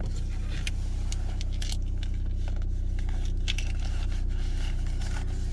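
Mazda RX-8's rotary engine idling steadily, heard from inside the cabin, with scattered crinkling and scraping as the key fob is worked into a fabric anti-theft pouch.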